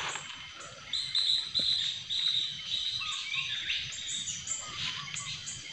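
Bird calling: a steady run of short high chirps, about two or three a second, with a few lower falling notes about three seconds in.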